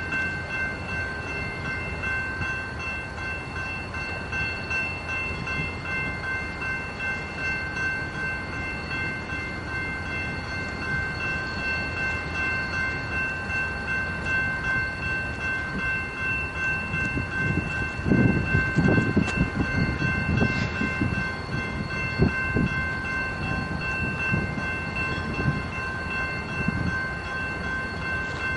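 Grade-crossing warning bell ringing on and on over a low rumble beside a stopped freight train. About two-thirds of the way in come several seconds of irregular low thumps and rumbles.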